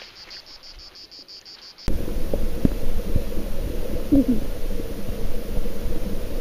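Insects chirping in quick, even pulses, about five a second. About two seconds in this cuts off suddenly as the microphone goes under the stream's water: a loud, muffled underwater rumble with scattered clicks and a steady hum.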